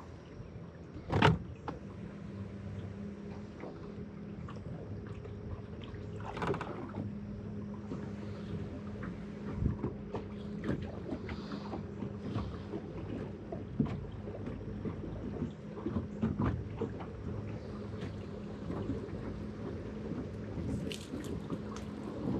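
Sounds of a fishing boat on the river: a steady low hum with scattered knocks and clunks, the loudest knock about a second in and another about six and a half seconds in.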